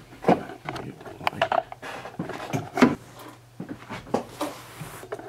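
Irregular knocks, clicks and rustles of a handheld camera being gripped and moved about.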